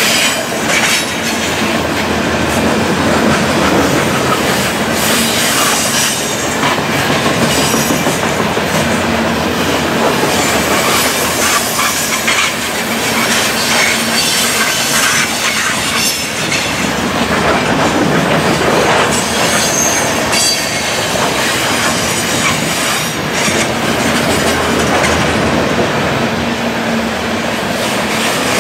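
Covered hopper cars of a long freight train rolling past close by on a curve: a steady rumble with the clatter of wheels over the rail joints, and brief high wheel squeal now and then.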